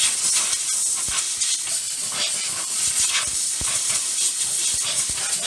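Compressed-air blow gun giving a loud, continuous hiss of air as it blows dirt off a car's front brake hose line.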